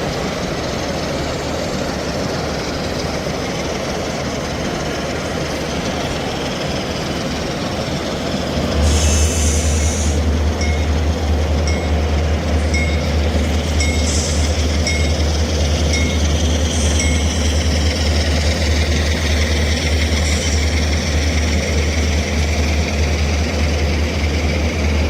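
Steady convention-hall background noise, then about nine seconds in a loud, steady low rumble starts and keeps going: a sound-equipped model diesel locomotive running. A short run of evenly spaced ringing tones follows soon after, in the manner of its bell.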